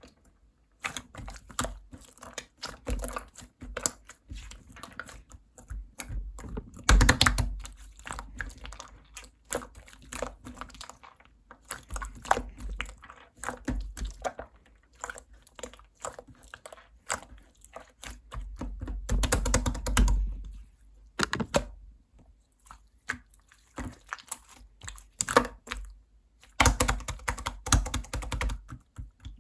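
Mint slime being squeezed and poked by hand, making rapid, irregular sticky clicks and pops. The clicking comes in denser, louder runs about 7 seconds in, around 20 seconds in, and near the end.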